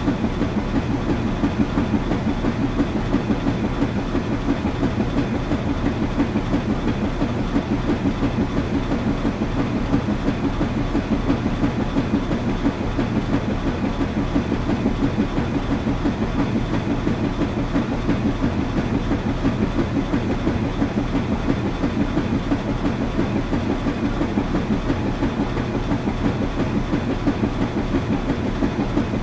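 Washing machine running steadily: a low hum with a fast, even rhythm that does not change.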